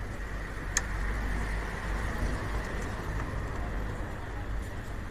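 Steady low background rumble with one light click about a second in.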